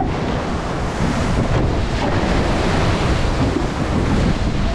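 Steady, loud rush of wind buffeting the microphone and water rushing past the hulls of an Extreme 40 racing catamaran sailing fast downwind.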